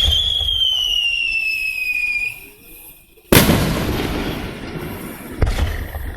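Fireworks: a shell launches with a thump and a whistle that falls slowly in pitch for about two seconds, then bursts overhead with a loud bang about three seconds in. The bang rumbles away over a couple of seconds, and another distant thump comes near the end.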